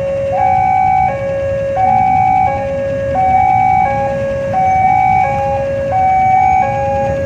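Railway level-crossing warning alarm sounding continuously: two electronic notes, a higher and a lower one, alternating about every two-thirds of a second, over a low rumble.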